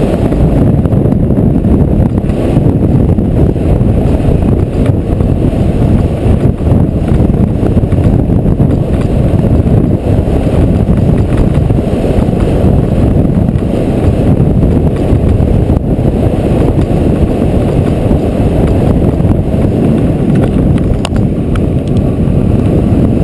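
Wind buffeting a GoPro's microphone during a fast descent down a snow slope: a loud, steady low rumble.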